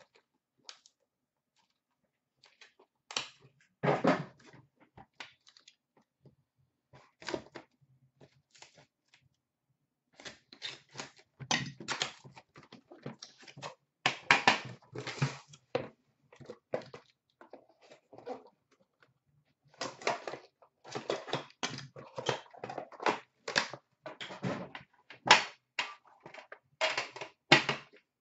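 A sealed hockey card box being handled and opened: irregular crinkling and rustling of wrapping with knocks of cardboard, sparse at first and busier from about halfway in.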